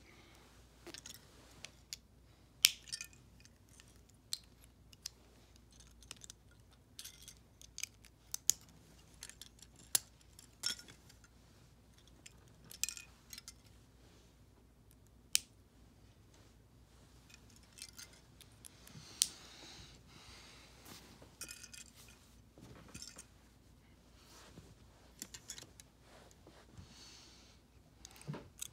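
Plastic Bionicle pieces clicking and snapping as they are handled and fitted together: irregular sharp clicks, a few of them louder snaps.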